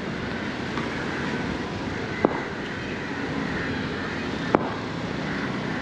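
Steady outdoor street noise with two sharp knocks about two seconds apart.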